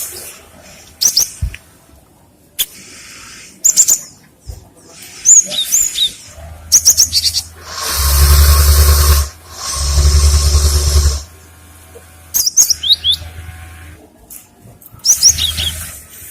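Cinereous tit (gelatik batu) calling: clusters of short, high chirps and quick whistled notes that bend up and down. Two loud, harsh, noisy bursts of about a second each come near the middle.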